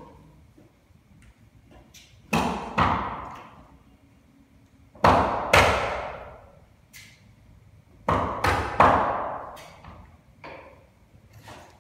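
Sharp knocks from carpentry work, in groups of two or three spaced a few seconds apart, each ringing out for about a second in an echoing room.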